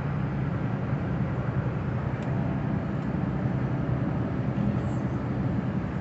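Steady loud rush of wind and road noise coming in through an open car window while driving.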